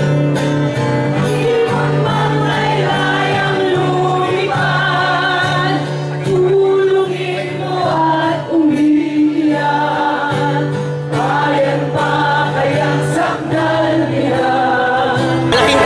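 A group of men and women singing a song together into microphones through a stage PA, over a steady held low note from the accompaniment.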